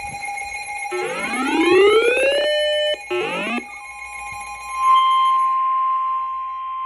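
A siren-like wail rises for about a second and a half, holds, cuts off, and comes back for a short burst. About four seconds in, a steady single-pitch alert tone near 1 kHz begins and holds. It is the warning alarm tone that introduces a weather-radio severe thunderstorm warning.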